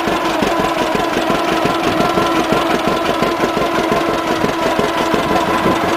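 The two-cylinder engine of a 1946 John Deere A tractor running steadily, its exhaust beat a rapid, even series of thumps.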